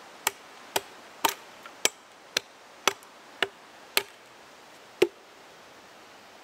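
Short axe chopping through the base of a thin wooden pole held upright against a log: nine sharp chops about two a second, the last and loudest about five seconds in.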